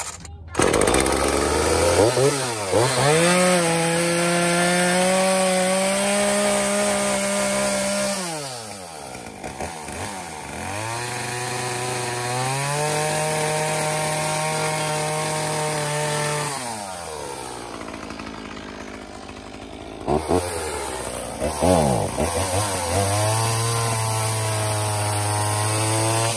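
A chainsaw is run up to speed three times while its bar cuts into the top of a cardboard box. Each run rises in pitch, holds steady, then winds down.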